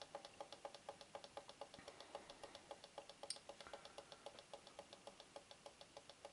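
Faint, rapid, evenly spaced electronic ticking, about seven or eight a second, from a Bush clock radio while its time-set button is held and the minutes step quickly forward. There is one sharper click about three seconds in.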